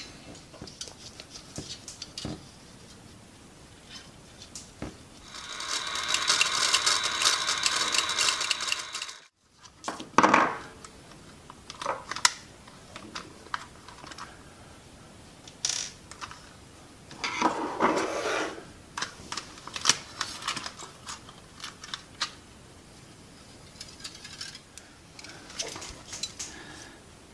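Small plastic and metal toy parts being handled, with scattered clicks and rattles. A few seconds in, a steady aerosol spray lasts about four seconds and then cuts off suddenly; this fits contact cleaner being sprayed onto an intermittent contact in the toy's transmitter.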